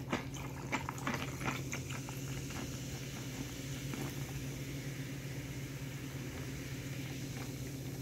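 Carbonated soda poured from a two-liter plastic bottle into a glass mug packed with ice: a steady fizzing stream over the ice, with a few sharp clicks from the ice in the first couple of seconds.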